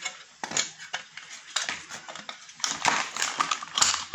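Handling noise from a portable work lamp: scattered clicks and clinks from its metal reflector and wire guard as it is turned over in the hand, growing into denser crinkling of plastic wrap in the last second and a half.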